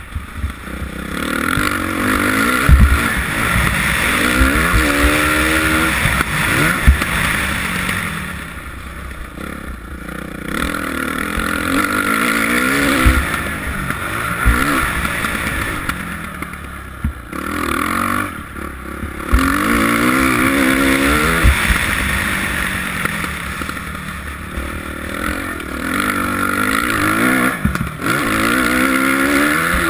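A 2007 Suzuki RM-Z450's four-stroke single-cylinder engine, revving up and falling off again and again through a lap of a dirt track. It is heard over a steady rush of wind on the helmet camera, with a few sharp low thumps.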